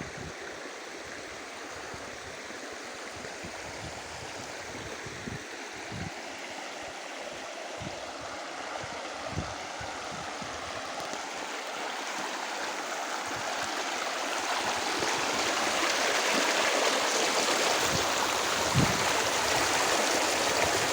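Rushing river water: a steady wash that grows louder about two-thirds of the way through, with a few soft low thumps.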